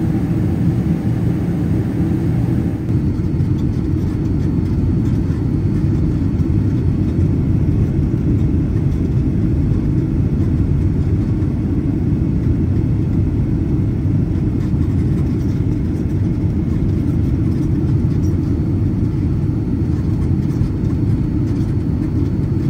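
Jet airliner cabin noise: a steady, loud low rumble from the engines and airflow.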